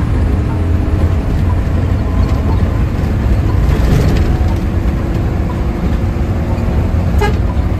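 Front-mounted diesel engine of a Hino AK intercity bus running hard, heard loud inside the cabin, with a horn sounding over it.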